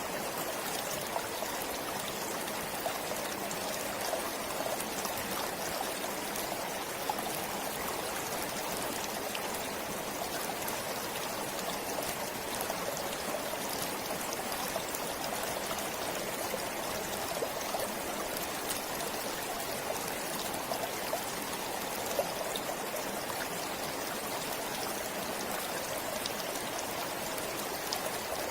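Forest stream flowing, a steady rush of water with small splashes and trickles.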